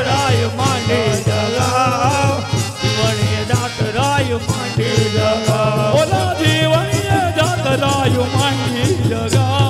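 Gujarati devotional folk song: a singer's wavering, ornamented melody over a steady, repeating drum beat, accompanying a garba troupe's possession dance.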